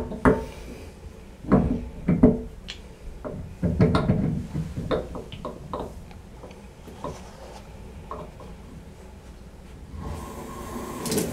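Scattered knocks, clicks and rubbing of a clear plastic bathtub faucet handle being pushed onto the splined valve arm and turned against the chrome trim plate. Near the end water starts running from the tub spout as the handle is turned on.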